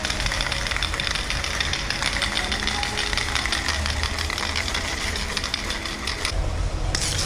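Aerosol spray paint can hissing as paint is sprayed onto a concrete wall, with a low rumble underneath. The hiss stops for about half a second a little after six seconds in, then starts again.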